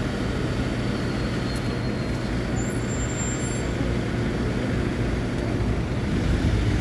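Mercedes-Benz Sprinter 515 CDI minibus's four-cylinder turbodiesel idling steadily, a constant low drone, with street traffic around it.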